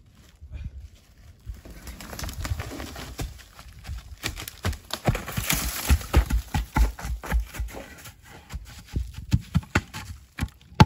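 Footsteps crunching through snow and dry leaves, mixed with irregular thuds as a sawn round of white oak tumbles down the slope. The knocks come thickest in the middle and thin out near the end.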